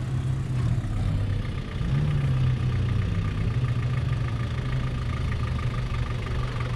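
Engine of an off-road 4x4 running steadily at low revs, its pitch stepping up slightly about two seconds in.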